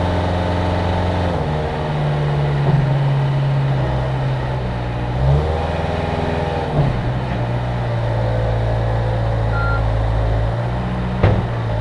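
Cat 236B3 skid steer loader's diesel engine running steadily, its pitch shifting down and back up a few times as the machine is worked, with a higher tone rising and falling in the middle. A single sharp knock near the end.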